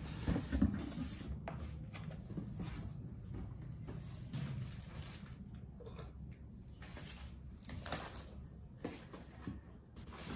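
Packing being lifted out of a cardboard printer box: intermittent rustling of plastic wrap, with scrapes and light knocks of cardboard and foam, over a low steady room hum.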